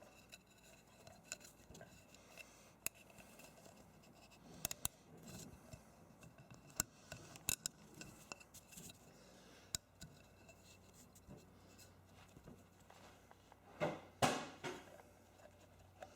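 Faint handling noises of small parts: scattered light clicks and rubbing as new O-rings are worked onto an oil filter housing, with a couple of louder short scrapes near the end.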